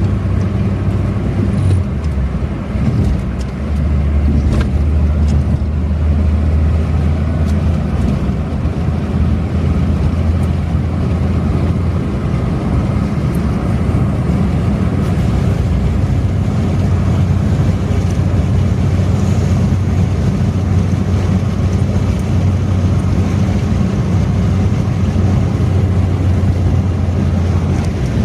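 Suzuki Karimun Kotak hatchback cruising on a toll highway: a steady low engine drone over tyre and wind noise, easing briefly about three seconds in.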